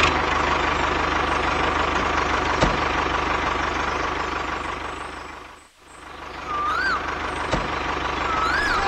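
Diesel tractor engine running at a steady chug. It fades out briefly a little under six seconds in, then comes back. A couple of short rising-and-falling chirps sound near the end.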